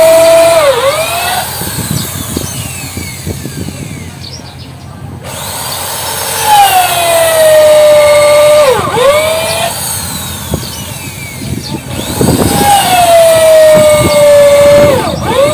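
A corded electric power tool works on the wooden planks of a boat hull. It runs in three bursts of a steady high whine, and the pitch sags and drops sharply as each burst is loaded and released.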